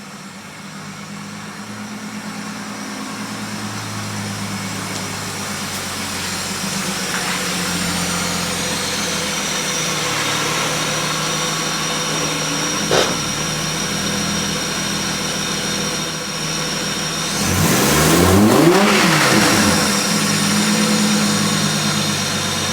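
Car engine, plausibly the Commodore's V6, running at a steady idle that slowly grows louder, with a sharp click about 13 seconds in and a short rev rising and falling about 18 seconds in.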